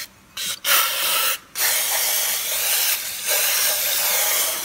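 Aerosol parts cleaner spraying onto the all-wheel-drive coupling's parts in a hiss: two short spurts, then a long steady spray.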